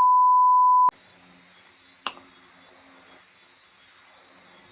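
A loud, steady, pure beep tone, such as an edited-in bleep, that cuts off abruptly about a second in. Then faint room tone with a single sharp click about two seconds in.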